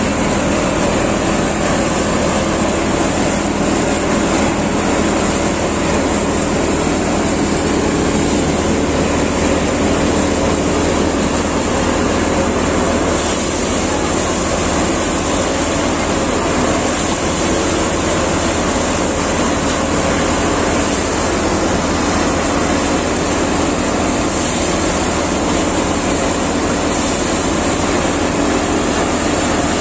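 Prachi tractor-driven paddy thresher running steadily under load as paddy sheaves are fed in, its threshing drum and the tractor engine making a loud, even mechanical drone.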